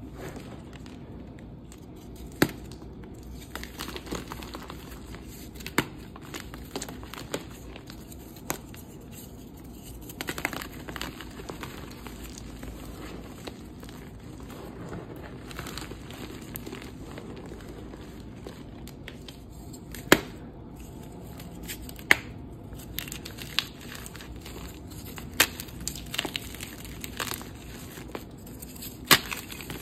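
Hands crushing and crumbling dusty dyed gym-chalk reforms: a steady gritty crumble as the chalk breaks down and trickles through the fingers, with scattered sharp snaps as harder pieces break.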